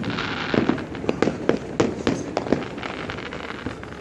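Aerial fireworks going off: a quick irregular string of sharp pops and cracks, about a dozen over a few seconds.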